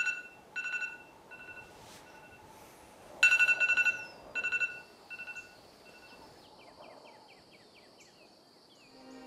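iPhone alarm tone going off: groups of high two-note beeps, the loudest group about three seconds in, each followed by fainter repeats that die away. Later comes a run of short, high, falling chirps.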